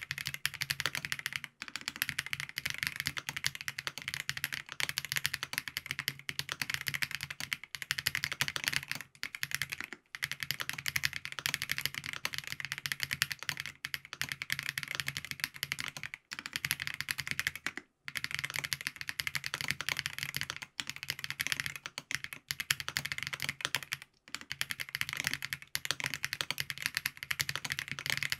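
Continuous fast typing on a FancyTech Origin 65A mechanical keyboard with lubed Geon Black switches, a POM plate and ABS keycaps: a dense run of keystroke clacks, broken by a few short pauses.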